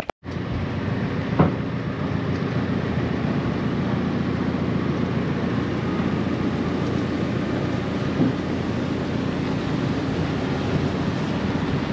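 Steady running noise of a heavy vehicle, even and unchanging throughout, with one brief click about a second and a half in.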